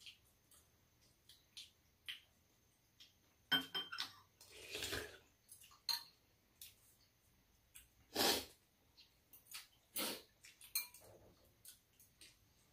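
Metal spoons and chopsticks tapping and clinking against soup bowls during a meal, in scattered light clicks. Three louder short noisy sounds come a little before the middle, past the middle and about ten seconds in.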